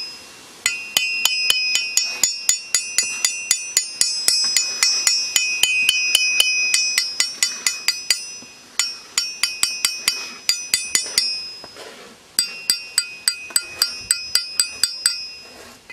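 Small hammer tapping rapidly on the face of a 100 kg anvil, about four strikes a second in three runs with short pauses, each strike leaving the anvil ringing with clear high tones. The anvil rings well, its welded and freshly oil-hardened face sounding solid.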